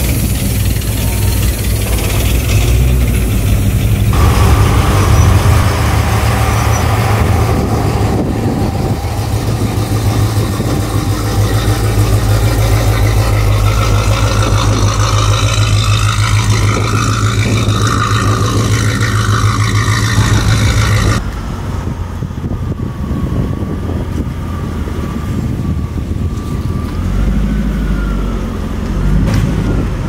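Car engine idling with a steady low rumble. The sound changes abruptly three times, and after the last change it is quieter, with a faint wavering whine.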